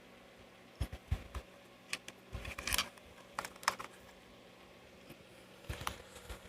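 Light clicks and taps of hands handling the opened speaker's plastic parts, coming irregularly, with a busier cluster about two to three seconds in and a few more near the end.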